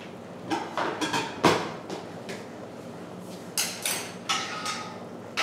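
A series of about eight sharp, irregular knocks and clanks, the loudest about one and a half seconds in, one followed by a brief metallic ring, over a steady low background.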